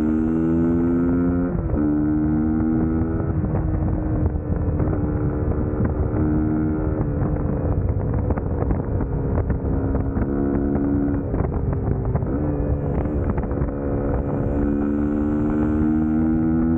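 Suzuki GSX-S150 single-cylinder engine running while riding, its pitch holding steady for a second or two, then stepping to a new level several times, with wind noise on the microphone.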